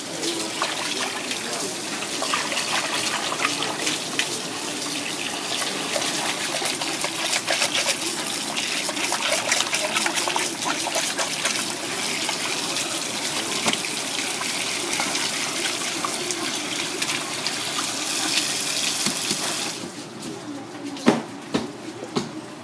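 Tap water running into a sink in a steady rush, shut off near the end, followed by a few sharp knocks.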